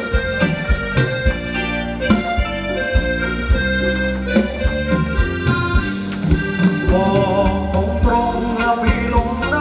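Thai ramwong dance band playing an instrumental passage: a reedy, accordion-like melody in held notes over a steady drum beat.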